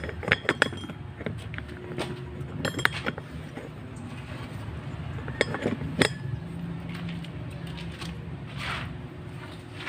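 Sharp metal clinks and clanks as metal pieces are handled around a homemade stove, loudest near the start and about six seconds in. Under them runs the steady low hum of the homemade electric blower.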